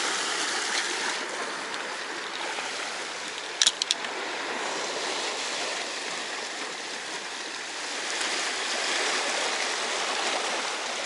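Sea waves washing over shoreline rocks, a steady rushing wash, with a few sharp clicks close together about four seconds in.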